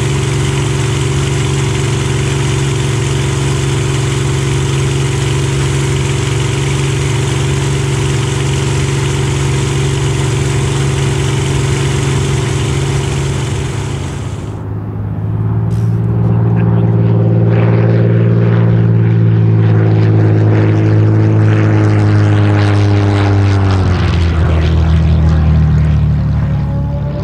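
Supermarine Spitfire's Rolls-Royce Merlin V12 engine running steadily in flight, a constant drone under heavy wind rush. About halfway through the wind rush cuts off and the Merlin is heard from the ground, a deeper steady drone that falls in pitch a few seconds before the end.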